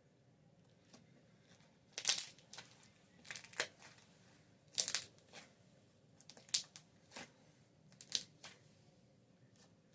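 Slime being worked by hand, giving short bursts of crackling pops, about six bursts spread over several seconds.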